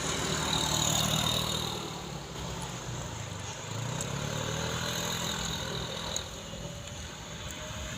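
Container truck's diesel engine running, its low note dipping about two seconds in and rising again around four seconds.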